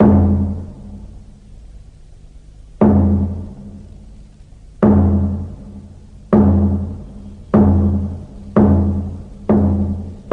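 Background score of deep, pitched drum strikes, each ringing out and fading, coming closer and closer together to build tension.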